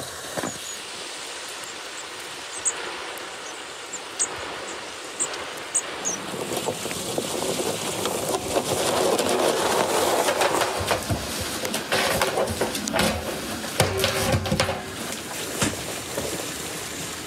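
Old wooden barrel rolled on its side over snow-covered ground: a rumble that starts about six seconds in and grows louder. It is followed by several wooden knocks as the barrel is stood upright and handled.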